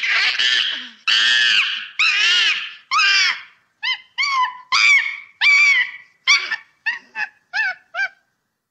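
A monkey screaming in distress while a snake coils around its body: shrill, arching cries, long at first, then shorter and quicker, about two a second, stopping a little before the end.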